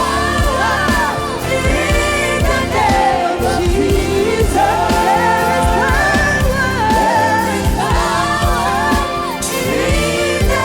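Gospel praise-and-worship song: several voices singing over a band with a steady drum beat and heavy bass.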